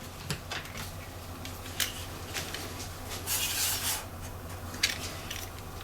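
Hard computer parts being handled during disassembly: scattered sharp clicks and taps, with one brief scraping rub about three seconds in, over a low steady hum.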